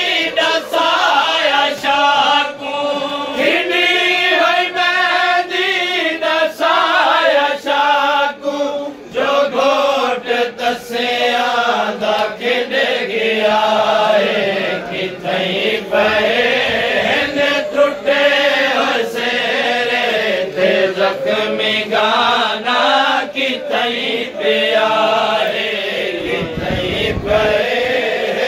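Men's voices chanting a noha, a Shia mourning lament, together in a crowd in a continuous sung line, with frequent sharp strikes cutting through.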